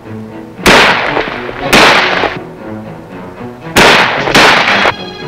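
Four rifle shots fired into the air, each with a short echo: two about a second apart, then after a pause two more about half a second apart. Background film music plays underneath.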